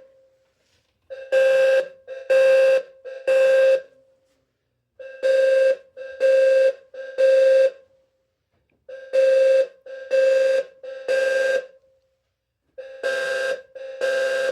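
Wheelock low-frequency fire alarm sounder sounding code 3 (the temporal-3 evacuation pattern): four sets of three short, low horn tones, each set followed by a pause. The last set is quieter.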